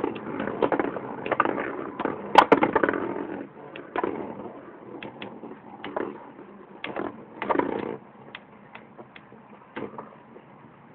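Two Beyblade spinning tops whirring and grinding against each other and the plastic stadium floor, with rapid rattling clacks and one sharp loud clack about two and a half seconds in. Then come scattered single clacks as the tops slow and wobble, dying away near the end.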